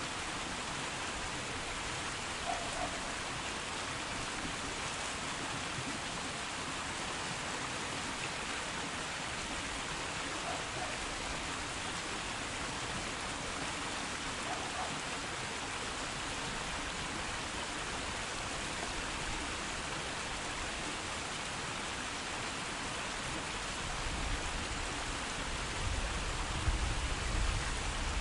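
Small stream flowing, a steady rushing and splashing of water. A low rumble builds up near the end.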